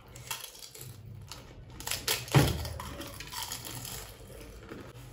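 Crisp fuchka (pani puri) shells crunching as they are bitten and chewed, in scattered bursts, the loudest about two and a half seconds in.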